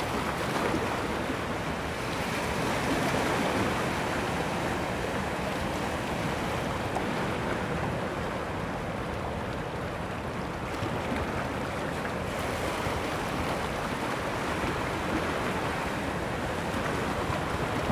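Sea surf washing in and foaming around shoreline rocks: a steady rushing of water that swells a little about three seconds in.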